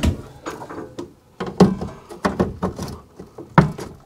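A handful of separate knocks and bumps as a Renogy 48V inverter charger is hung on a particle-board panel on the wall, its case knocking against the board; the loudest knock comes near the end.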